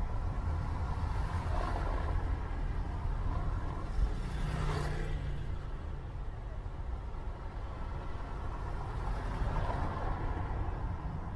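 City street traffic ambience: a steady rumble of vehicle engines and road noise, swelling a little now and then as vehicles pass.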